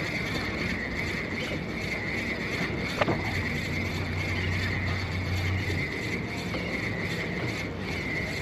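Steady background noise aboard a fishing boat, with a constant high whine throughout, a low hum for a couple of seconds in the middle, and one sharp click about three seconds in.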